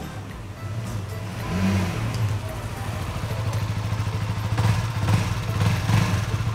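Honda CBR150R's single-cylinder four-stroke engine running as the motorcycle rides up, growing louder, with a short rise in pitch about one and a half seconds in.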